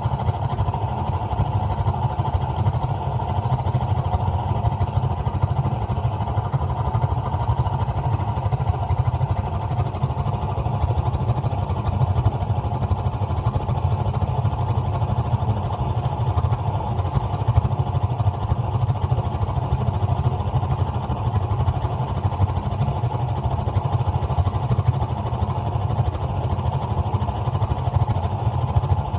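Gas water heater running with its burner lit: a steady low rumble with a higher hum over it, unchanging throughout.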